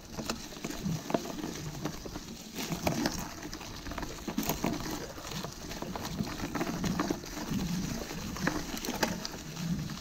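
Kona mountain bike rolling along a dirt forest trail: tyres crunching over leaf litter and twigs, with frequent irregular clicks and rattles from the bike.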